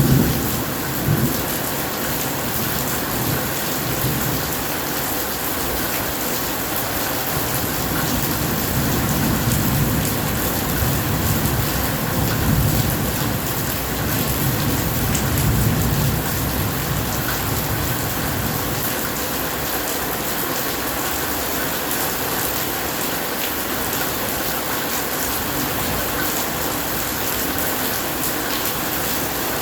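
Steady heavy rain falling and splashing, with thunder rumbling low underneath. The thunder swells into a long roll from about a quarter of the way in to past the middle, after two short jolts at the very start.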